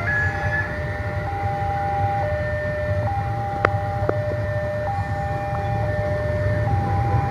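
Railway level-crossing warning alarm sounding a two-tone signal, switching between a higher and a lower tone about once a second, the sign that a train is approaching the crossing. A steady low rumble runs underneath, and two sharp clicks come near the middle.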